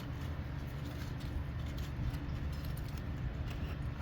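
Steady low rumble of an excavator engine idling, with scattered light clicks and scrapes from hand digging in the dirt.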